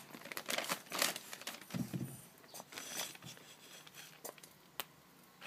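Handheld camera handling noise over a workbench: scattered clicks and short rustles, with a sharp tick near the end.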